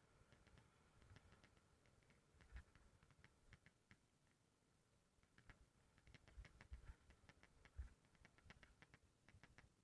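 Faint clicking from a mountain bike: runs of rapid ticks with short breaks between them, and a few low thumps.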